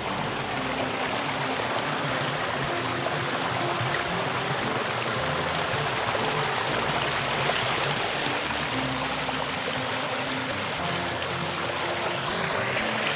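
Stream water rushing over rocks in a steady, unbroken rush.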